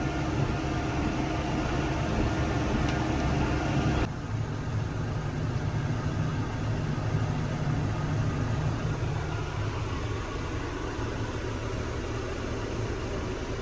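A vehicle engine running steadily. About four seconds in it cuts abruptly to a similar but duller engine hum.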